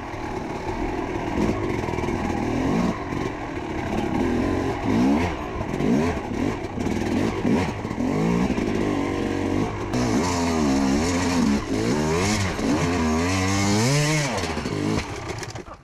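Dirt bike engine being ridden, revving up and down over and over as the throttle is opened and closed, with the widest swings in pitch in the later part.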